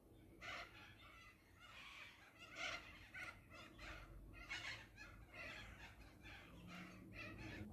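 A hen that has just laid an egg making faint, soft, repeated clucking sounds at irregular intervals.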